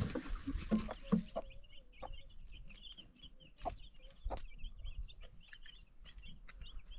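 Domestic hen clucking, with quick high chirps and a few sharp clicks.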